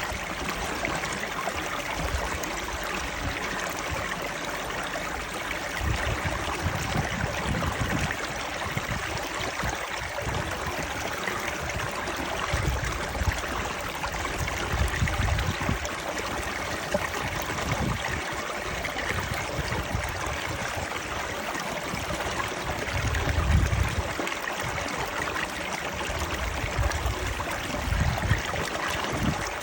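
Stream water flowing and rushing steadily, with a few louder low surges now and then.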